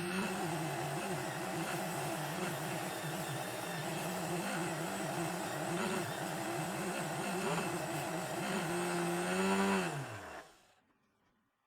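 Homemade sanding machine powered by a meat grinder motor running, its pitch dipping and wavering unevenly for most of the time, then steadying before the motor winds down and stops about ten seconds in.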